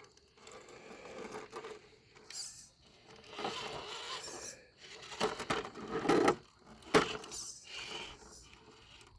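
GMADE RC rock crawler clambering over an obstacle: irregular scraping and crunching of tyres and chassis, with a few sharp knocks about five to seven seconds in.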